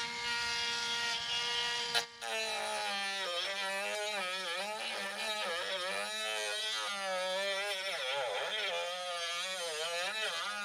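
Drill Master rotary tool (a Dremel-type tool) running at high speed, opening up a mounting hole. It whines steadily at first and cuts out for a moment about two seconds in. It then runs on with its pitch wavering up and down as the bit grinds the edge of the hole.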